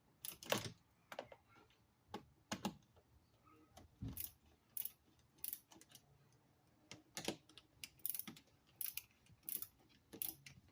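A socket ratchet clicking as a 7mm socket is worked on the dash fasteners, with irregular short runs of sharp metal clicks.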